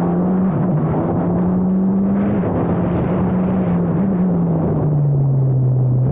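Formula Abarth single-seater's turbocharged 1.4-litre four-cylinder engine under way, its note climbing for about two seconds, then easing and falling steadily as the car slows, with a short blip about four seconds in.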